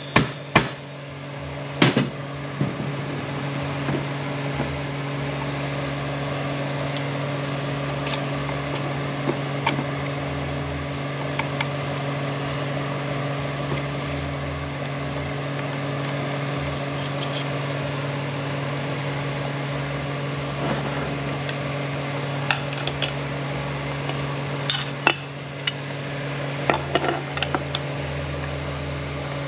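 A steady mechanical hum with a few sharp metal clicks and taps from hand tools and transmission parts. The clearest taps come about two seconds in and around twenty-five seconds in.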